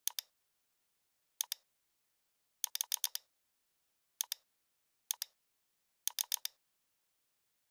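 Computer mouse button clicking: quick press-and-release pairs about once a second, with faster runs of several clicks about three seconds in and again near the end, and dead silence between.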